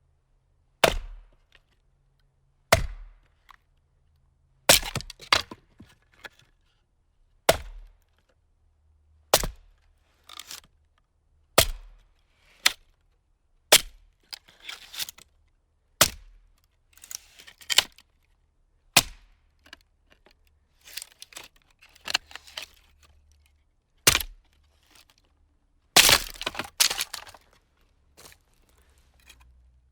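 Axe splitting firewood: about a dozen sharp cracking strikes at irregular intervals of one to three seconds. Several are followed by a quick run of smaller cracks as the wood breaks apart.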